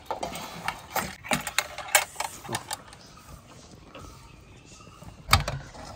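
Wire grill basket rattling and clicking as it is pressed shut and tightened over pieces of chicken, with one sharper clack about five seconds in.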